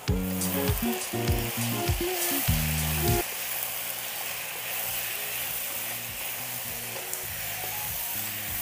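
Potatoes and ground spices sizzling as they fry in an iron kadhai, stirred with a wooden spatula. Background music plays loudly over the first three seconds, then faintly near the end.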